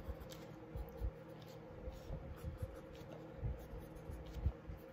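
Pencil sketching on drawing paper: faint, short scratching strokes, with a few soft low bumps.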